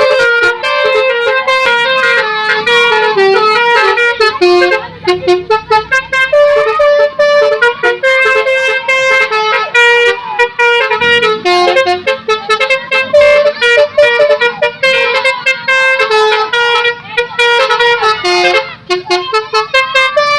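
Telolet basuri musical bus horn playing a fast tune of short, stepped horn notes, with a few brief breaks in the melody.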